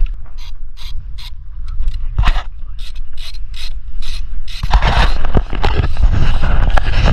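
Ratcheting chain soil-pipe cutter being worked on old cast-iron sewer pipe: sharp ratchet clicks about two a second, then from about four and a half seconds in a louder, denser stretch of crunching and scraping metal.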